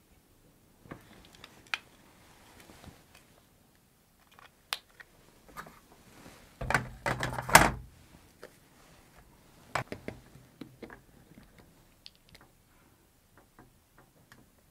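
Scattered clicks and knocks of a large board compass and ruler being handled against a whiteboard and its tray, with a louder stretch of clatter about seven seconds in as tools are set down and picked up.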